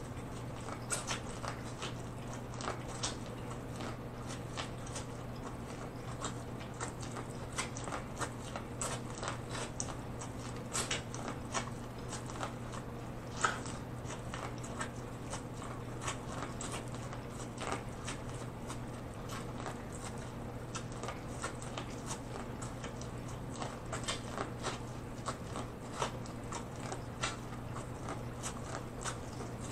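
Biting and chewing corn off the cob: a steady stream of small crisp clicks and crunches as kernels are bitten off, with one sharper crunch about halfway through. A steady low hum runs underneath.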